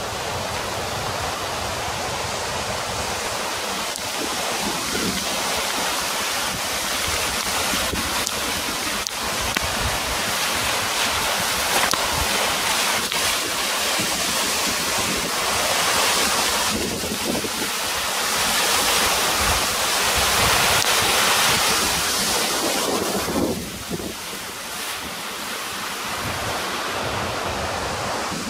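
Floodwater rushing in a river in spate, a steady wash of water noise, with wind buffeting the microphone in low gusts. It swells louder for several seconds past the middle.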